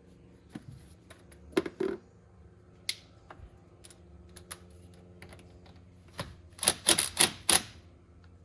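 Hand work on truck wiring: scattered sharp clicks and taps of tools and parts being handled, with a louder pair about a second and a half in and a quick run of four sharp clicks near the end.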